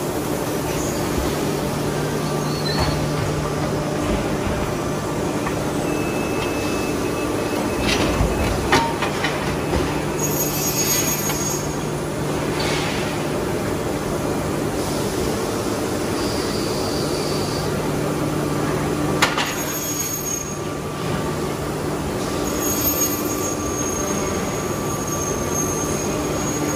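Aluminium extrusion press line running: a steady low machine hum with stretches of hiss and a few sharp metallic knocks, about 8, 9 and 19 seconds in.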